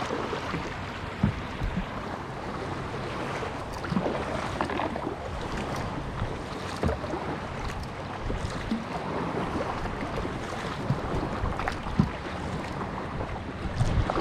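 Kayak crossing choppy water: waves splashing and slapping against the hull with paddle strokes, wind buffeting the microphone, and a few sharp knocks.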